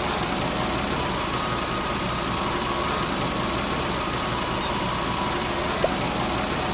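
A vehicle engine idling steadily, as a cartoon sound effect.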